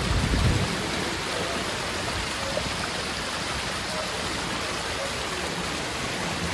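Steady rushing and splashing of water from a small cascade spilling over stone ledges into a river. A short low rumble comes in the first moment.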